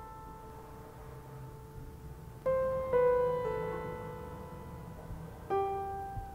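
Slow, sparse solo piano music: a few single notes struck about half a second apart, then another a couple of seconds later, each left to ring and fade.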